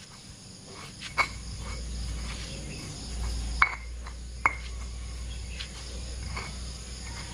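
Stone pestle grinding and mashing boiled quail egg yolk with bread in a stone mortar (cobek): a steady low scraping rub, broken by several sharp stone-on-stone knocks.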